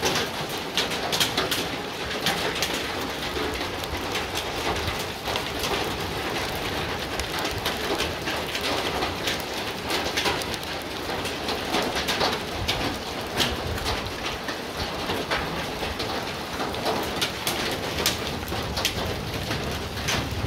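Rain and small hail falling steadily on grass, bare earth and a pond: a dense patter of many small sharp impacts.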